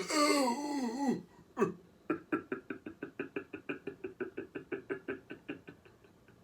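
A person's throaty voice: a wavering, falling groan, then a rapid even run of short croaking pulses, about eight a second, for several seconds, which he says afterwards he 'caught a little funny'.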